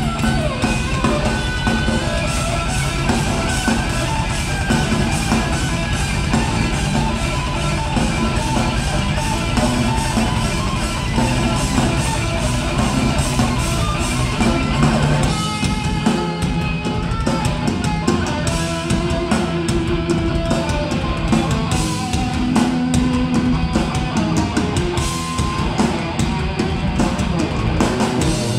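Live thrash metal band playing: distorted electric guitars, bass and drum kit. About halfway through, the bottom end thins and held guitar notes stand out.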